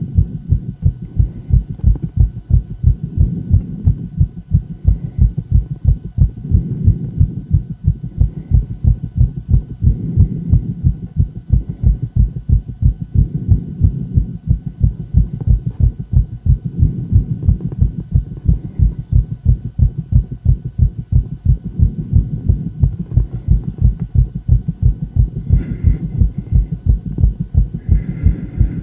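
A woman's heart beating fast, recorded close up: a quick, regular train of low thumps that keeps an even rhythm throughout.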